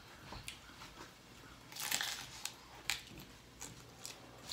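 Hard taco shell crunching as it is bitten and chewed: one loud crunch about two seconds in, then several shorter crunches.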